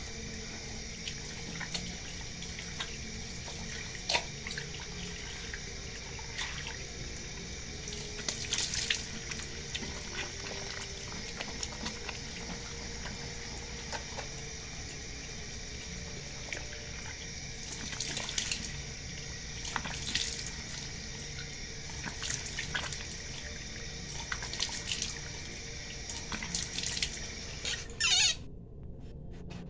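Tap water running steadily into a sink, with scattered splashes as a face is washed with cleanser and rinsed. The water stops suddenly near the end.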